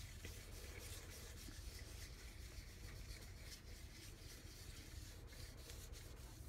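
Faint, steady rubbing of a hand baren worked in circles over contact paper laid on the back of a damp printing paper, burnishing a monoprint off an inked plexiglass plate without a press.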